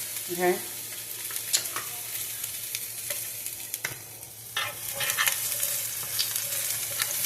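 Food frying in a hot pan or on a griddle with a steady sizzle, broken by scattered sharp clicks and knocks.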